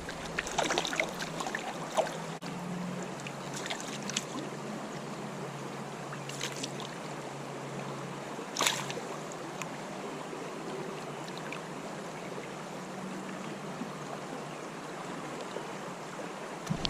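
Creek water running steadily, with a few brief sharp sounds over it, the loudest about eight and a half seconds in.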